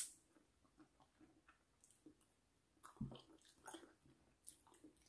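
Faint chewing and small wet mouth sounds of someone eating fresh cherries, with a sharp click right at the start and a soft thump about three seconds in.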